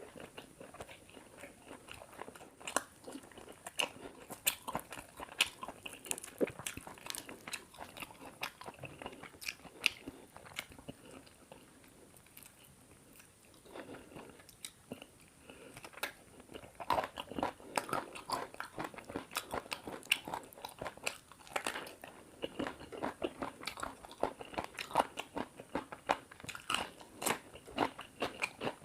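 Close-miked eating of chicken curry with paratha: chewing and biting with a quick, uneven run of small clicks. The clicks thin out for a few seconds about halfway through, then come thick again.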